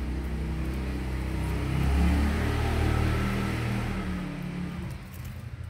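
A motor vehicle's engine passing by, swelling to its loudest about two seconds in and fading away by about four and a half seconds.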